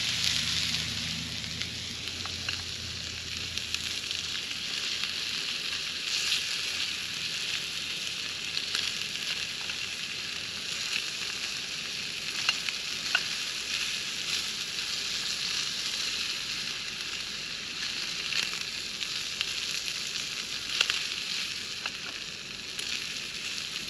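Fish fillets frying in oil in a skillet, a steady sizzle with a few light clicks scattered through it.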